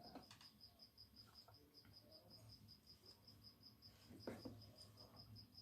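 Near silence with faint insect chirping: a high, evenly pulsing trill of about six pulses a second, and a soft knock about four seconds in.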